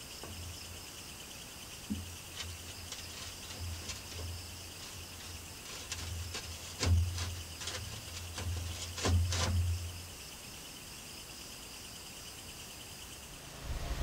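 Crickets chirring steadily at night, with a run of irregular soft knocks and low thumps between about two and ten seconds in, loudest around seven and nine seconds.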